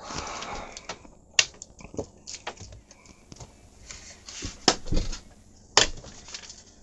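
Scattered plastic clicks and light knocks of hands handling a portable radio and plugging headphones into its headphone jack, with three sharper clicks standing out.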